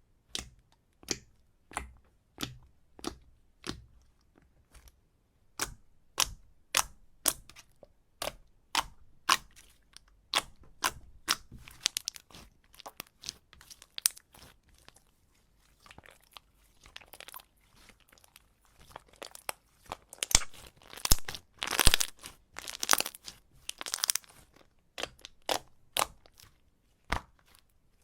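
Slime being pressed and played with by hand: crisp clicking pops about two a second at first, then denser crackling and crunching, loudest a little after the middle.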